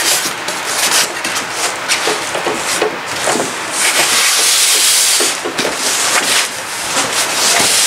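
Packaging being handled: continuous rustling and rubbing with small knocks, and a longer hissing rustle about four seconds in.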